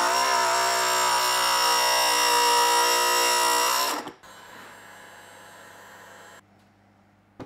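An electric power tool's motor running at a steady pitch for about four seconds, then cutting out abruptly to a quieter steady run that stops about two seconds later. A single short click comes near the end.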